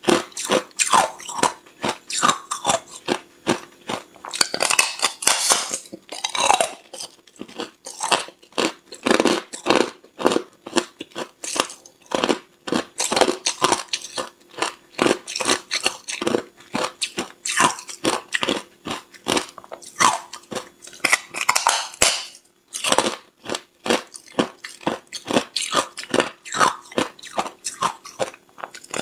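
Hard ice being bitten and crunched between the teeth: a dense run of sharp cracks and crunches one after another, with a brief pause a little after three quarters of the way through.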